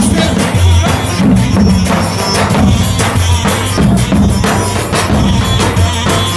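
A davul, the large double-headed bass drum, is beaten in a steady dance rhythm of heavy low booms and sharper strikes, amid loud folk dance music.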